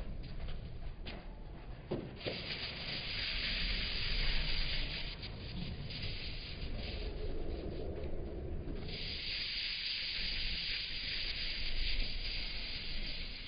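Hand scrubbing a refrigerator's surface during cleaning, a rapid rubbing hiss in two long spells, the second starting about nine seconds in.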